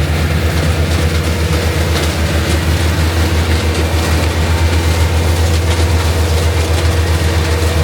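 Large diesel engine of sweet corn harvesting equipment running steadily at close range: a loud, even, deep rumble that does not change.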